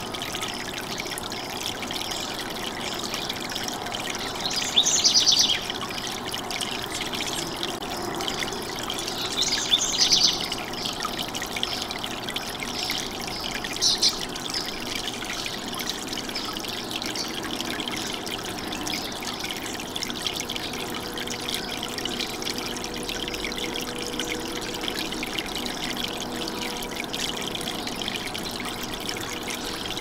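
Water from a tiered garden fountain trickling and splashing steadily over the tier edges into the basins. Three brief, sharper high sounds stand out in the first half.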